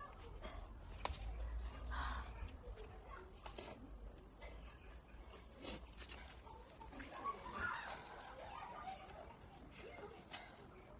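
Faint, steady, high-pitched insect trill, with faint scattered clicks and knocks from handling.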